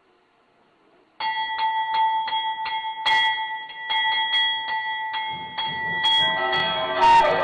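Metal temple bell hanging on a chain, rung by hand over and over for the aarti. The strikes start about a second in and come about three a second, each leaving a bright ringing tone. From about six seconds in, more ringing tones join and the sound thickens.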